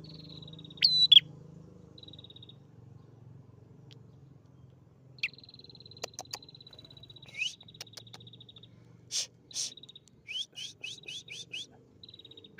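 A newly caught wild songbird singing vigorously while held in the hand. Its song mixes buzzy trills held at one high pitch with sharp downslurred notes, and ends with a quick run of about six falling notes.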